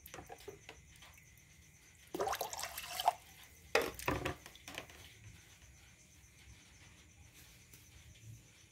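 Water poured over raw rice in a woven bamboo steaming basket, in two splashy pours: one about two seconds in lasting about a second, and a second just before four seconds. Water trickles and drips after each pour.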